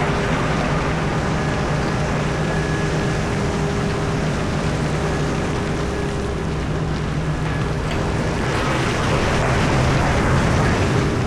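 Komatsu PC4000 mining excavator's engine running steadily under load, with a rougher, louder rush of noise from about nine seconds in.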